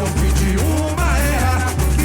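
A samba-enredo performed live by a samba school's drum section and singers: deep bass drums keep an even beat while voices sing the melody over them.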